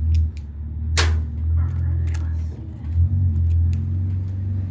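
A car engine running with a low rumble that swells and eases: the neighbor's car, which revs its engine. A sharp click sounds about a second in, with a few lighter ticks.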